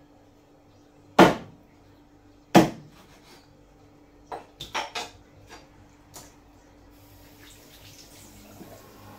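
Two heavy chops of a large kitchen knife through fish onto a wooden chopping board, about a second and a half apart, followed by a few lighter knocks and clatters. From about seven seconds in, a tap runs into the sink as the fish pieces are rinsed.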